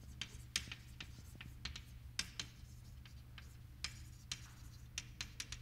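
Chalk writing on a blackboard: faint, irregular taps and short scrapes, one stroke after another, over a steady low room hum.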